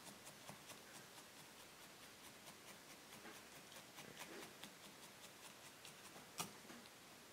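Felting needles in a multi-needle holder stabbing repeatedly into wool, a faint run of soft ticks about three a second, with one sharper tick near the end.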